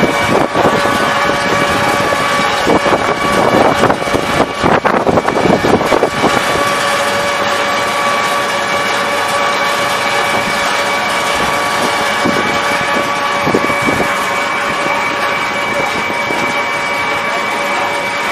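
Wood-pellet production machinery running, a steady machine drone with a constant whine. About three seconds in there is a few seconds of irregular rattling and clatter.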